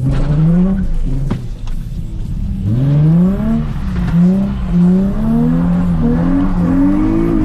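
Nissan 350Z's 3.5-litre V6 engine revving as the car is driven through a drift: one rise in revs at the start, then from about three seconds in the revs climb and drop again and again.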